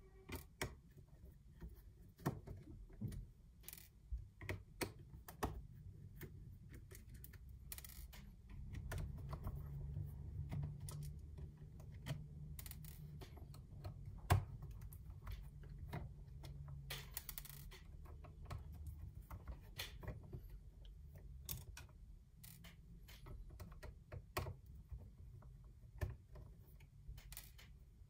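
Irregular small clicks and taps of a screwdriver, tiny screws and the drone's plastic body being handled on a wooden desk. A stretch of low handling noise runs through the middle.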